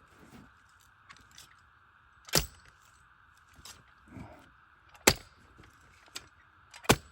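Post hole digger blades being jabbed down into the ground, three sharp strikes about two seconds apart, in soil laced with tree roots.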